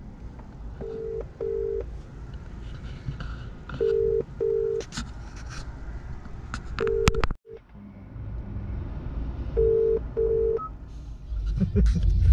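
Telephone ringing tone in the British double-ring pattern, 'brr-brr', repeating four times about every three seconds: an outgoing call ringing and not yet answered. A low, steady rumble runs underneath.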